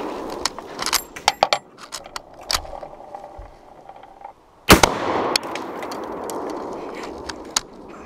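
A single loud rifle shot from a 7.62x54R Mosin-Nagant about four and a half seconds in, its echo rolling off over the next few seconds. Before it, the echo of the previous shot fades out and a run of small clicks and ticks follows.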